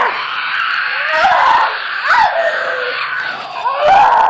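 A woman crying out and wailing in distress: several cries that rise sharply in pitch and then fall away.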